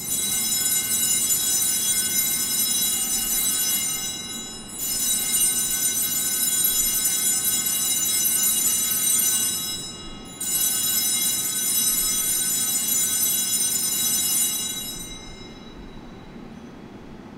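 Altar bells rung three times in a row, each ringing lasting about five seconds before the next, the third dying away near the end. This is the ringing at the elevation of the chalice during the consecration at Mass.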